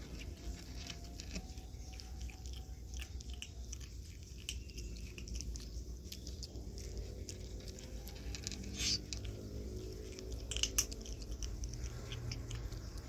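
A kitten chewing dry cat kibble: a run of small, irregular crunches and clicks, with two louder crunches in the second half.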